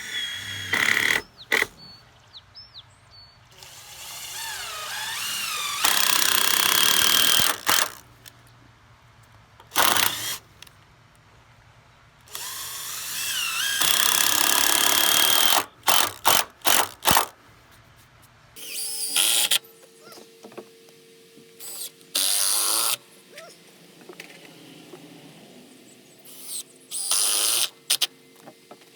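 Power drill driving screws into composite fascia boards, in repeated bursts of one to two seconds, some with a rising whine, between short sharp taps.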